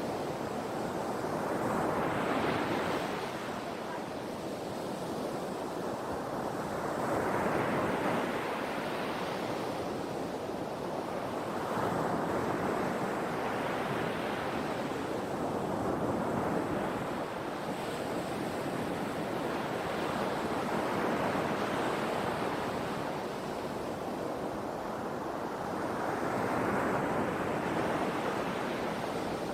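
Ocean surf: waves washing in, the rushing noise swelling and falling back about every four to five seconds, six surges in all.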